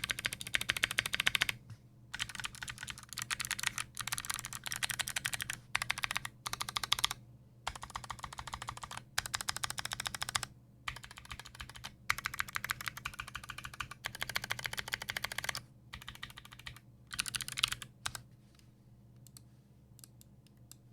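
Custom 60% mechanical keyboard with a brass plate, lubed Kailh Speed Bronze switches, Durock V2 stabilizers and GMK keycaps being typed on in fast runs of keystrokes broken by short pauses. The typing stops about three seconds before the end.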